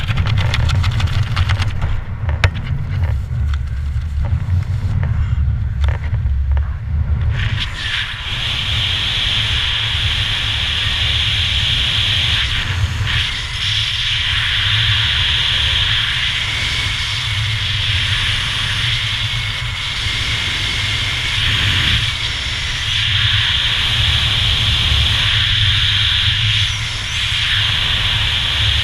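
Wind rushing over the camera under an open parachute canopy. Heavy low buffeting for the first eight seconds or so settles into a steadier hiss.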